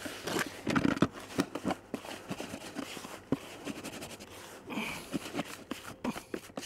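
Hand mixing damp method-feeder groundbait in a plastic bucket: irregular gritty rustling and scraping, loudest about a second in.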